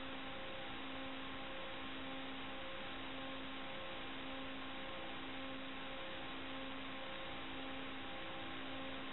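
Open-channel hiss of an air traffic control radio recording between transmissions, with a low hum that pulses on and off roughly once a second.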